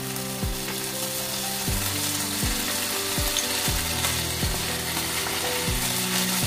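Oil sizzling steadily in a wok as dried chillies, garlic and ginger fry, over background music with a steady beat.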